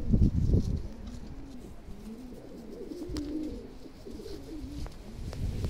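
Domestic pigeons cooing, a run of rolling, rising-and-falling coos, with wind rumbling on the microphone during the first second.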